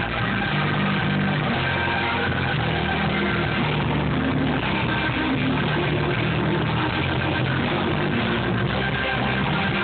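A live rock band playing through an outdoor stage's PA speakers, guitar and bass prominent, recorded at a distance on a phone. The music plays continuously at a steady level.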